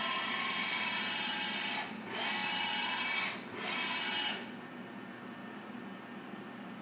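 X-axis drive of a Bridgeport Explorer X-26 CNC vertical mill whining steadily as the table is jogged. The whine comes in three runs and stops about four and a half seconds in.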